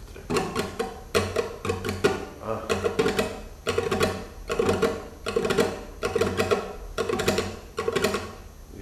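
Flamenco guitar strummed in rasgueado figures: bursts of rapid finger strokes across the strings in short repeated phrases, with brief gaps between them.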